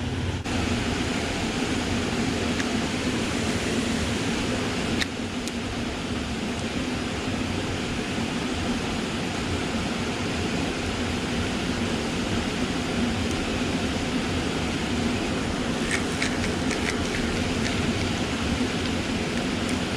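Steady rush of river water pouring over a falls or dam, an even hiss with no change throughout. A single sharp click about five seconds in and a few faint ticks near the end.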